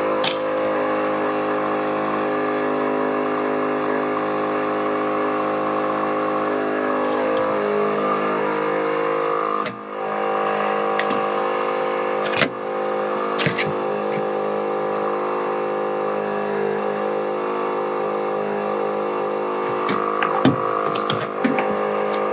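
Small electric air compressor of a portable tire inflator running steadily, pressurising an exhaust smoke test. It dips briefly about ten seconds in, and a few light knocks come near the middle and the end.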